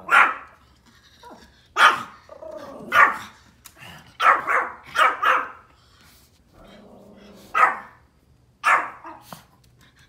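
A Pomeranian barks about nine times in sharp, high yaps at irregular intervals, with a quick run of four near the middle: alarm barking at deer it has seen outside the door.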